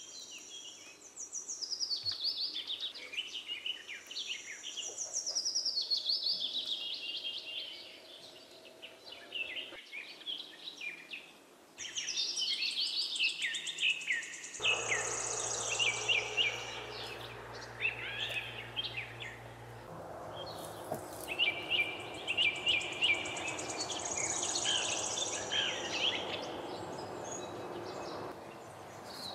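Many small birds chirping and trilling in woodland. The background shifts abruptly a few times, and from about halfway a steady hiss with a low hum runs underneath the birdsong.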